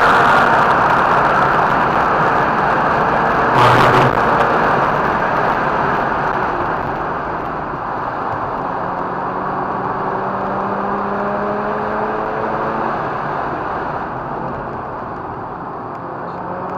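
Mazda RX-8's rotary engine running hard on a race track, its pitch climbing slowly through the second half as the car accelerates. A short loud noise cuts through about three and a half seconds in.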